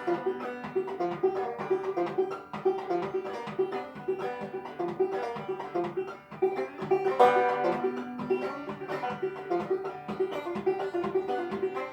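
Five-string banjo played clawhammer style, a lively tune of quick plucked notes in a steady rolling rhythm, with a louder strummed chord about seven seconds in.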